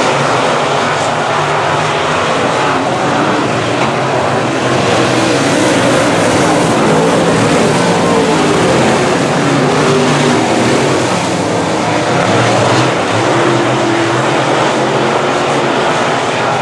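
Dirt-track semi late model race cars' V8 engines running hard as the field laps the track: a loud, steady engine noise that never breaks off.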